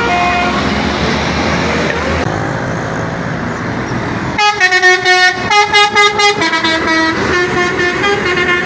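A bus's Basuri telolet horn plays a quick multi-note jingle over engine and road noise. It comes in loudly about four and a half seconds in and runs on more softly to the end.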